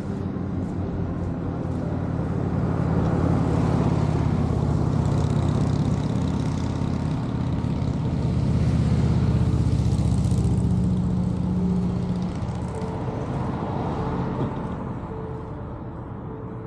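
Road vehicle noise, a car's engine and tyres on the road, swelling twice and then fading away.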